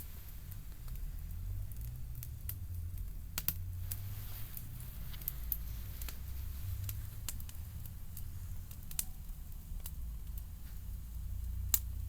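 Wood fire crackling, with scattered sharp pops and snaps, a few of them louder, over a steady low rumble.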